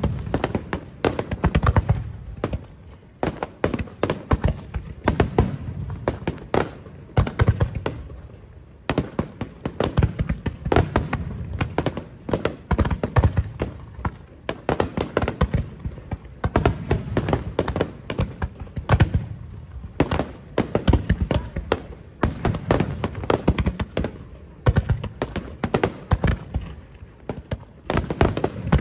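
Fireworks display: aerial shells bursting in a dense, continuous barrage of sharp bangs and low booms, several a second.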